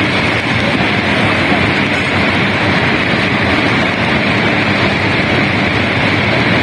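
Steady, loud rushing of a muddy flash flood surging down a steep, rocky mountain gully.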